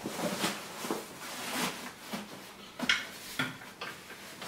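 Handling noise from fitting the mattress pad into a Graco Pack 'n Play Nearby Napper play yard: a handful of short fabric rustles and light knocks, the sharpest about three seconds in.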